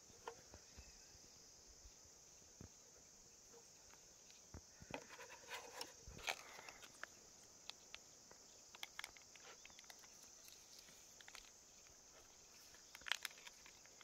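Quiet handling noises: small clicks and crinkles of thin plastic bowls and a ketchup sachet being handled, with a sharper crackle about 13 seconds in. A faint steady high hiss sits underneath.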